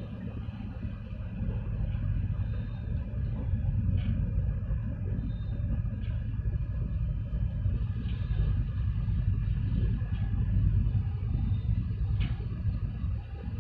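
Wind buffeting the microphone: a low, uneven rumble that swells and eases.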